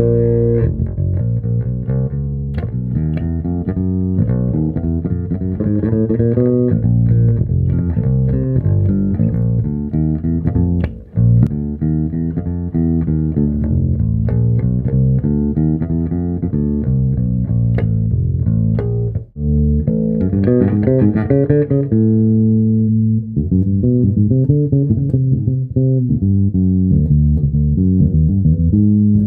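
1985 Made-in-Japan Fender Precision Bass with a maple neck, played through a Markbass amp and a Gallien-Krueger 4x10 cabinet: a continuous run of plucked bass lines, broken off briefly twice.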